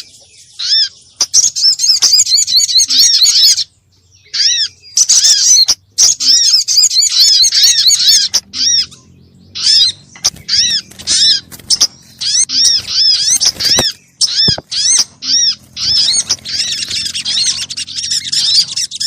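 Lure recording of a sunbird-family songbird ('sogon', 'sogok ontong') calling: fast, high, chattering runs of arched chirps in bursts of a second or two, broken by short pauses.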